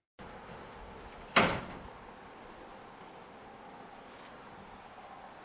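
Crickets chirring steadily in the background, with a single sharp knock about a second and a half in.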